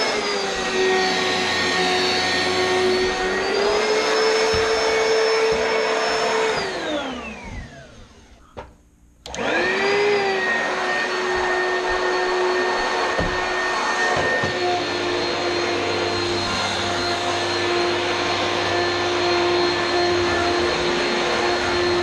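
Oreck XL2 upright vacuum cleaner running with a steady motor whine. About seven seconds in it is switched off and the pitch falls away as the motor winds down; about two seconds later it starts again, quickly rising back to its steady whine.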